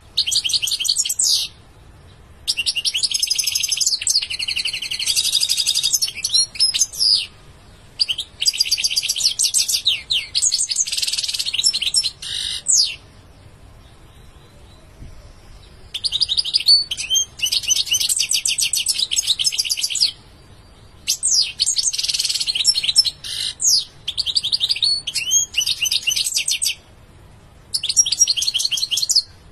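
European goldfinch singing: bursts of rapid, high twittering song a few seconds long, broken by short pauses and one longer pause of about three seconds midway.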